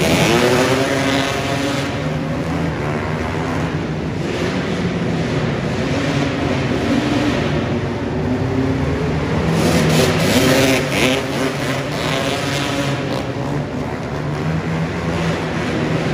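Several three-wheeled ATVs racing on a dirt flat track, a Honda ATC250R among them. Their engines rev up and down through the corners, loudest as machines pass near the start and again about ten seconds in.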